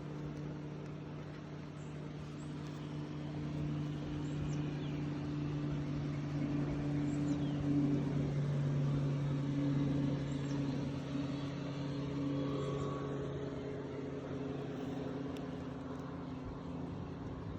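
Steady low hum of many honeybees around an opened hive, swelling louder about halfway through and then easing.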